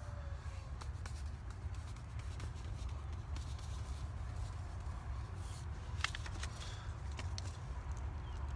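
Paper seed packet rustling and seeds ticking as they are tapped out onto soil, over a steady low rumble.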